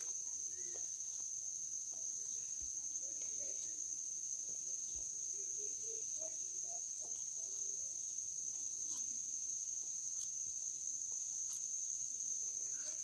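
Steady high-pitched insect chorus, like crickets, shrilling without a break, with a few faint crisp clicks as a tortoise bites and chews chayote and grass.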